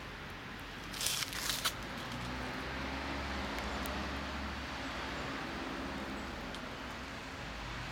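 Steady outdoor background noise with a low rumble underneath, and a few short clicks about a second in.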